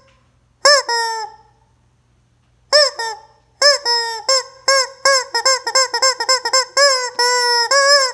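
Rubber squeeze-toy chicken squawking as it is squeezed: two separate honks, then a fast run of short honks about three a second, ending in a few longer drawn-out squawks.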